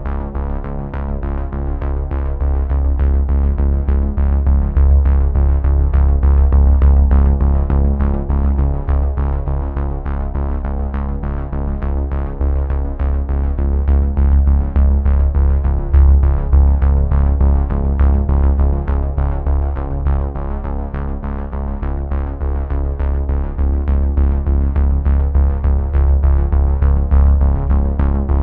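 Electronic background music with synthesizer and heavy bass.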